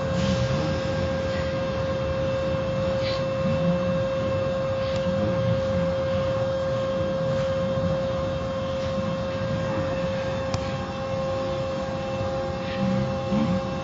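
Car wash machinery running with a steady droning hum that holds one pitch; a second, higher tone joins about ten seconds in.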